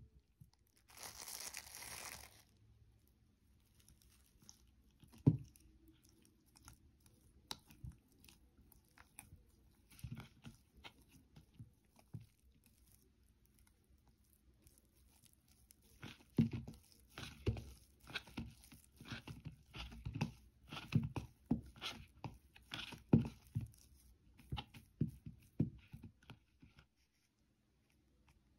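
Sticky bread dough being squeezed, pulled and torn by hand in a plastic bowl as butter is worked in, with irregular wet squishing and tearing sounds that grow busy in the second half. A brief hiss comes about a second in.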